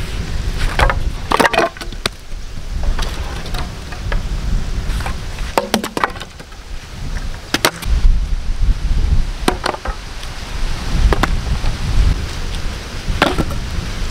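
Wooden planks and logs knocking and clattering wood on wood as they are picked up from a pile and thrown down onto another pile, about a dozen irregular knocks.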